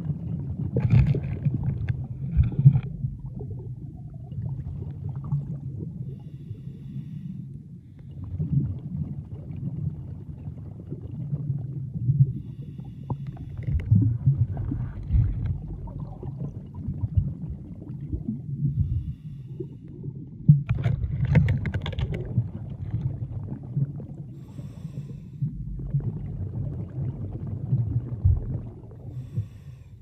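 Underwater sound picked up by a camera in shallow sea water: a muffled low rumble of moving water that swells and surges every few seconds.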